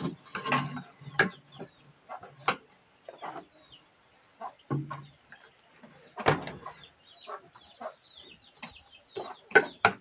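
Chickens clucking and chirping, with scattered short knocks and clinks of dishes and a plastic food container on a wooden table.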